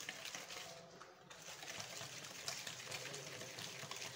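Hand whisk beating a wet batter of ghee, sugar and eggs in a plastic bowl: quiet, rapid ticking and swishing of the wires against the bowl.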